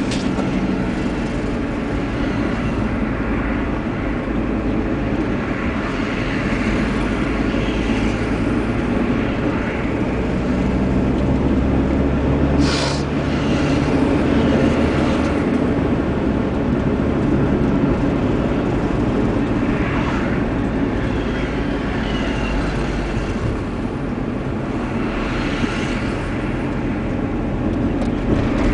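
Steady engine and road noise of a moving vehicle, heard on board, with a brief hiss about halfway through.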